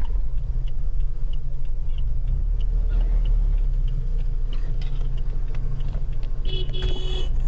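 Car cabin with the engine running at low speed as a steady low rumble. A turn-signal indicator ticks about every two-thirds of a second.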